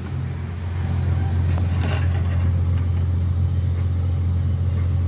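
A steady low-pitched hum, rising a little in the first second and then holding level, with a few faint clicks about two seconds in.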